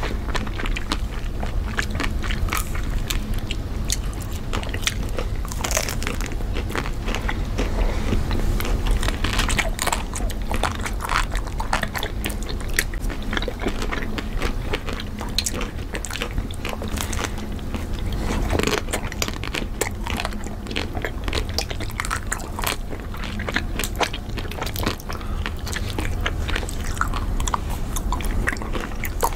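Close-miked biting and chewing of chocolate-coated ice cream bars on sticks: a dense run of irregular crackles and crunches as the chocolate shells break, with wet chewing between.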